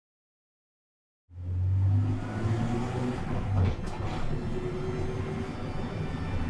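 Silence for about a second, then a car's engine and road noise start abruptly and run steadily with a deep drone.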